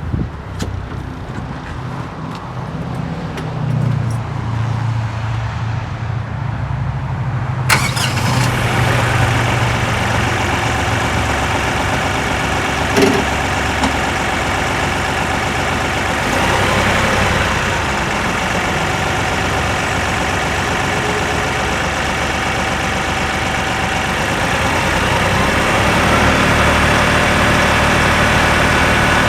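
Kioti tractor's diesel engine idling steadily while the regen button is held to begin a manual exhaust (DPF) regeneration, with a short knock about halfway through and the sound growing slightly louder near the end.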